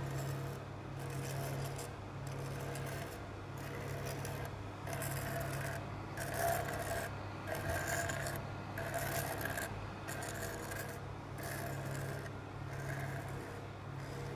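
Slide projectors running: a steady low hum under a mechanical noise that swells and drops at an even pace, a little more than once a second.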